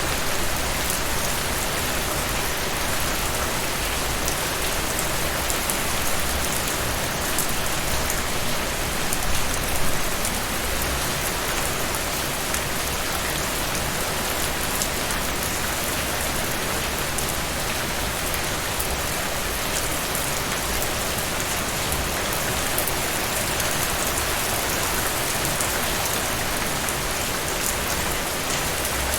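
Steady rain falling, a dense even hiss with fine patter of drops on a surface.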